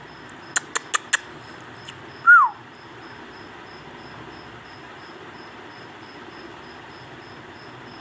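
Four quick sharp clicks, then about two seconds in a single short whistle that falls in pitch. After that only a steady hiss remains, with a faint high chirping repeating about three times a second.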